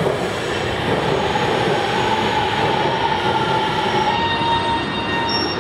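Metro train pulling into a station: a steady rumble from the cars and wheels, with a steady squeal through the middle as it slows. Thinner, higher squeals join near the end.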